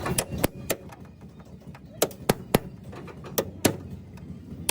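A series of sharp knocks or taps in quick groups: three near the start, three about two seconds in and two more about a second later, over a low steady background hum.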